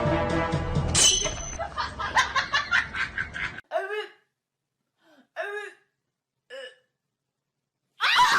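A person laughing in quick rhythmic bursts, then three short, separate voice-like calls with silence between them.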